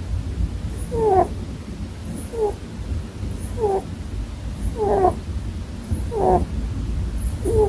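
Pet rabbit snoring in its sleep: a short, squeaky, falling note with each breath, repeating evenly about every second and a quarter, six times.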